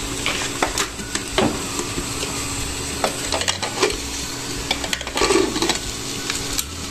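Clicks and clatter of a plastic spice box being put aside and the aluminium lid of a pressure cooker being fitted and its handle closed, with a denser knocking about five seconds in, over a steady hum.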